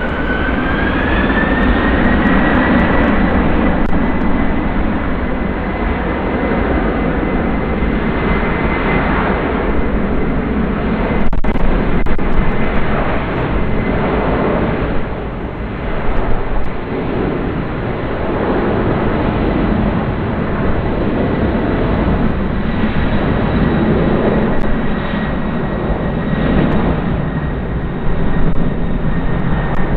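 Jet airliner's engines at takeoff power: a loud, rough rumble with a thin whine that climbs in pitch over the first two seconds and then holds steady. A single sharp click sounds about 11 seconds in.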